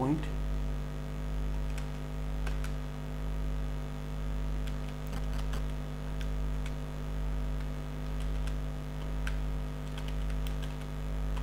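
Steady electrical mains hum that swells and fades about once a second, with faint scattered clicks of a handheld calculator's keys being pressed.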